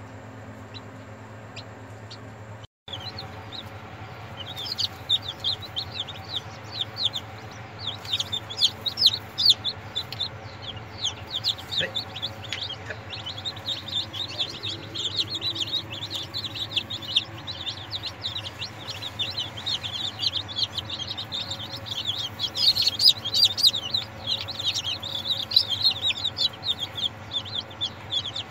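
Chicken chicks hatching and peeping: rapid high cheeps, several a second, starting about three seconds in, over a steady low hum.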